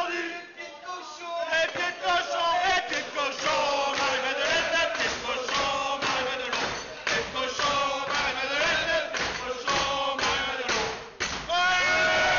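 A group of men chanting and singing loudly together, with repeated thumps. Near the end it gives way to steady music.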